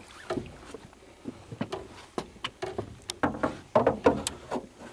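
Water splashing and sloshing as a hooked giant freshwater stingray flaps its wing edge at the surface beside the boat, in irregular short splashes that grow louder and more frequent toward the end.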